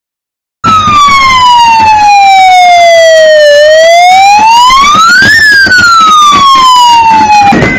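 Loud wailing siren: a single pitched tone that starts abruptly about half a second in, slides slowly down, climbs back up to a peak around five seconds in, then slides down again and cuts off just before the end.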